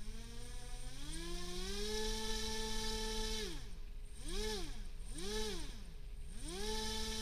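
Small brushless RC airplane motor spun up on the bench by transmitter throttle: its whine climbs in steps to a steady pitch, falls away, rises and falls twice in quick blips, then climbs and holds again.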